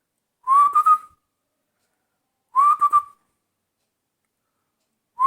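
A person whistling an imitation of a small Himalayan bird's call. Two short phrases about two seconds apart, each a quick rising note that breaks into a few rapid pulses, with a third phrase beginning right at the end.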